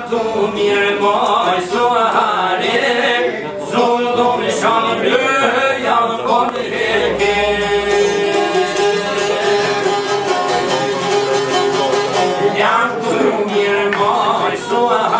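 Men singing a folk song to the accompaniment of two long-necked plucked lutes, with quick strummed strokes under the voice. The singer holds one long note through the middle before the melody moves on again.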